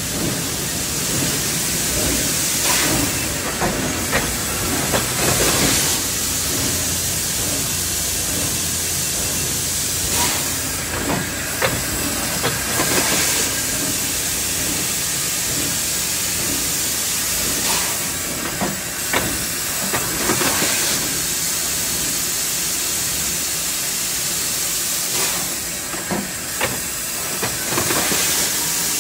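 Thermoforming line running: a loud, steady machine hiss, with louder puffs of air and sharp metallic clicks every few seconds.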